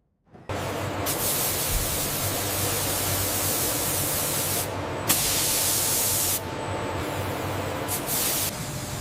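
Loud hissing spray at a forging press over a low machine hum. It begins abruptly about half a second in and surges brighter three times.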